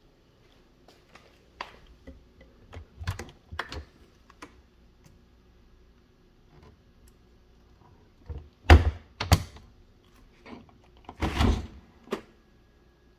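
Kitchen cabinet doors and a dishwasher door being opened and shut by hand: light clicks and knocks in the first half, then several loud thunks in the last few seconds, one of them longer and rattly.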